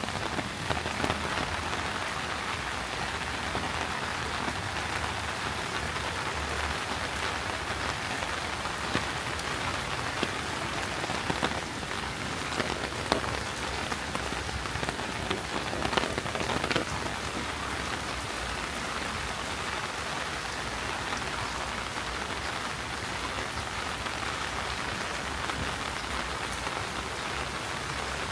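Steady rain falling, with scattered louder drips and pats standing out from the even hiss.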